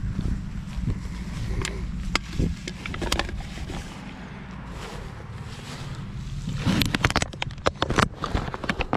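A plastic water bottle and aluminium cans crinkling and clicking as they are gathered by hand, with a dense burst of crackling about seven to eight seconds in, over a steady low rumble.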